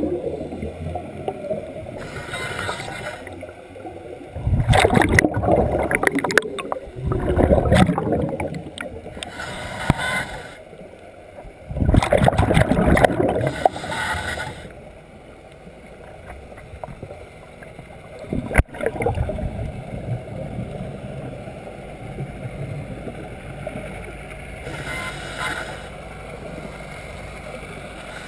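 Scuba regulator breathing heard underwater: a hiss on each inhale and a gurgling, bubbling rush of exhaled air, three strong exhales in the first half. Quieter after that, with one sharp click about two-thirds through.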